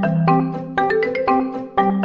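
Background music: a light tune of struck, ringing notes over a steady beat.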